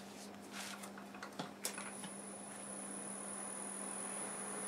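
Laguna Revo 1836 wood lathe switched on with a click, its motor bringing a heavy green cherry blank up to speed: a steady high whine comes in and the running noise slowly grows louder. A few light knocks come before it as the blank is handled.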